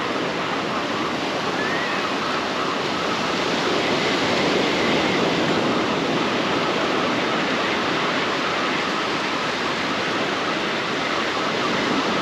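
Ocean surf breaking and washing up the beach: a steady rush of waves that swells slightly about four seconds in.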